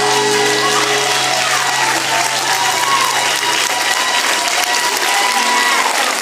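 Audience applauding, with music playing underneath; a held low note in the music stops about four seconds in.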